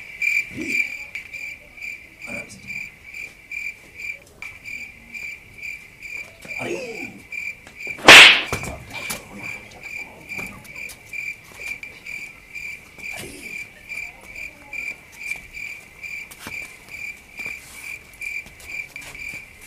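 Crickets chirping in a steady, even rhythm of a few chirps a second, with one loud smack about eight seconds in.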